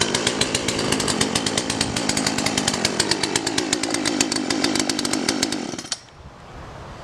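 Poulan P3816 38 cc two-stroke chainsaw engine running steadily on its first start, then shut off abruptly about six seconds in.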